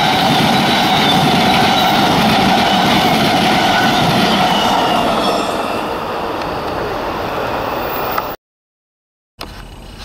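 Amtrak passenger coaches rolling past at speed: a steady rush of steel wheels on rail with a ringing tone. It fades after about five seconds as the last car clears, then breaks off into a second of silence near the end.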